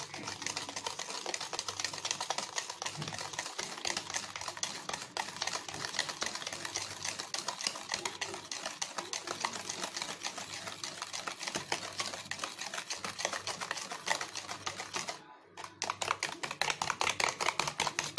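A hand utensil beating egg, sugar and oil in a plastic mixing bowl: a fast, continuous run of ticking strokes against the bowl, stopping briefly about 15 seconds in and starting again louder. This is the batter being beaten until it turns creamy.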